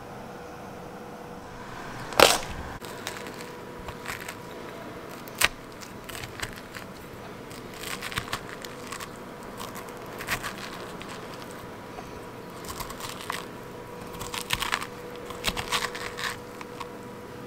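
A metal spoon scraping the seeds and stringy pulp out of a halved pumpkin: irregular scrapes, clicks and wet crunches, with a sharp crack about two seconds in.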